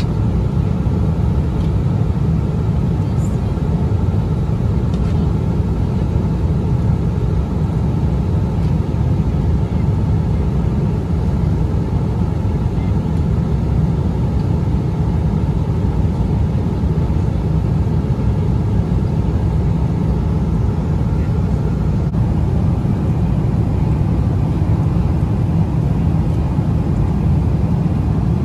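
Steady cabin noise of a Boeing 777 airliner in cruise flight, an even, low-pitched roar that doesn't change.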